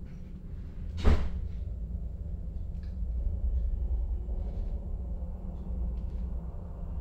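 A single sharp knock about a second in, over a low steady hum, with a few faint clicks later on.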